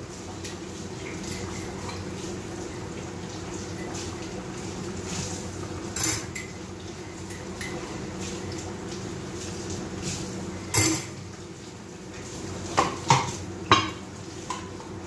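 Dishes and cutlery clinking and knocking as they are handled at a kitchen sink, with scattered single clinks and a quick run of louder knocks near the end, over a steady low hum.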